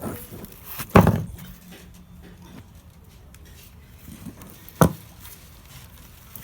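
Two sharp metallic knocks about four seconds apart as the metal parts of an opened refrigerator compressor are handled. The first is the louder and leaves a brief low ring.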